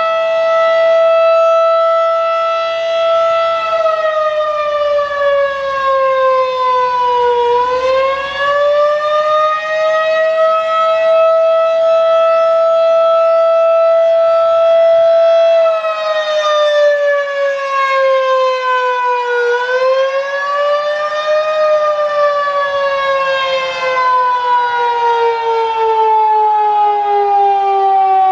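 Federal Signal 2001-DC outdoor warning siren sounding loud and continuous. It holds a steady tone, twice sags in pitch and climbs back, then glides steadily lower over the last several seconds.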